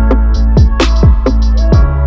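Electronic background music with a steady drum-machine beat and a deep bass line.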